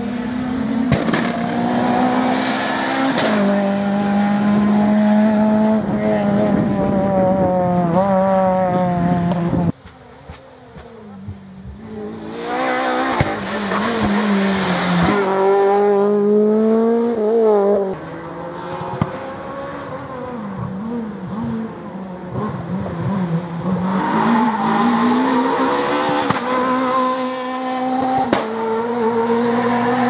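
Renault Clio R3 rally cars, each with a naturally aspirated 2.0-litre four-cylinder, at full throttle on a stage. The engine note climbs steeply and drops back at each quick upshift, again and again. It comes in three separate passes, the sound breaking off abruptly about a third and two thirds of the way through.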